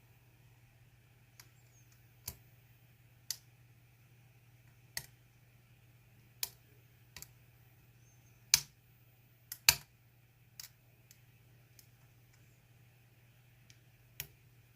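Scattered sharp metal clicks, irregular and about one every second or so, with two louder ones just past the middle: a pick and tension wrench working the pins of a GEGE six-pin euro cylinder during single-pin picking.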